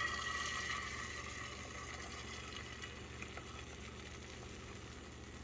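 Beaten egg sizzling as it is poured into hot butter in a frying pan, inside a hole cut in a slice of bread; the sizzle dies down gradually.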